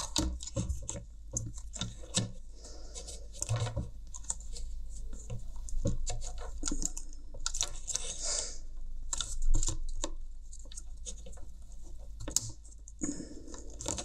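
Small clicks, taps and scratches of plastic headphone hinge parts being handled and worked at by hand, with a brief scraping rub about eight seconds in. A low steady hum lies underneath.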